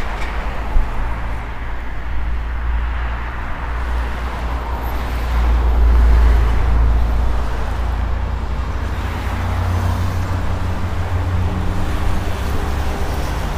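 Road traffic on a city street: a low vehicle rumble that swells as something passes about five to seven seconds in, and a steady engine hum joins in during the second half.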